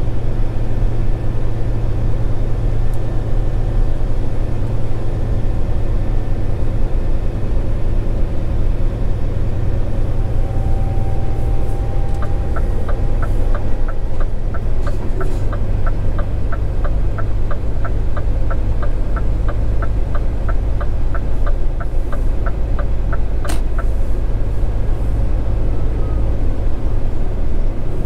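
Scania R410 truck's diesel engine running steadily at cruise with road rumble. Through the middle a regular ticking comes about three times a second for some ten seconds, ending with a sharp click.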